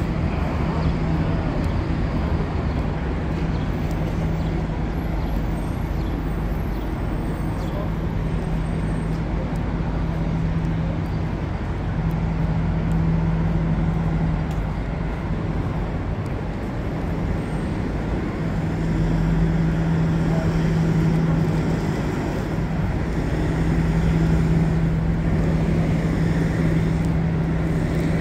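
City street traffic noise: a steady wash of passing cars with a low rumble, and a steady low hum that fades in and out several times.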